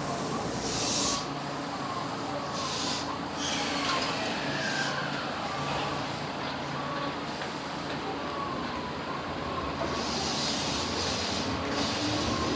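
JR West 223 series electric train standing at the platform: its equipment hums steadily under repeated short hisses of air. A falling tone sounds about four seconds in, and near the end a rising tone begins as the train starts to pull away.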